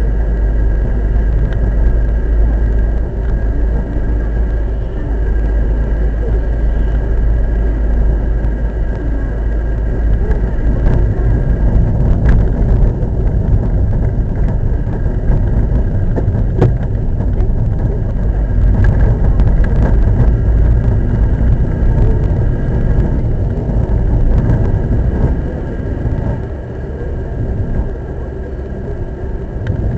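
A car driving along a road, heard from inside the cabin: steady engine and tyre noise, with a few light clicks or knocks around the middle. It eases off slightly near the end.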